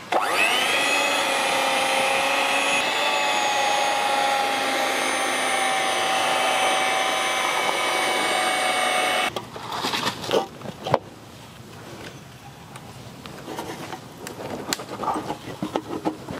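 Electric hand mixer beating whipped cream in a steel bowl: the motor whines up to speed at the start, runs steadily for about nine seconds, then cuts off suddenly. A few knocks and clatters follow.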